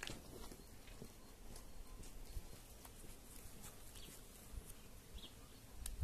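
Horse shifting on its hooves: faint, scattered knocks and clicks.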